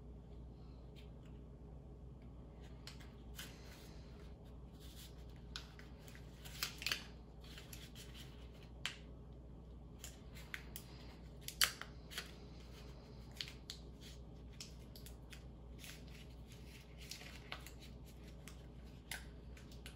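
Faint, scattered paper crinkles and small clicks from a sticky prescription label being peeled from its backing and handled in nitrile-gloved fingers, with a few louder crackles.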